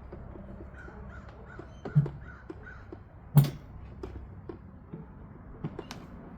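Parts of a large animatronic dragon yard decoration knocking and clicking as they are handled and fitted, with two sharp knocks about two and three and a half seconds in. A crow caws faintly several times in the background during the first half.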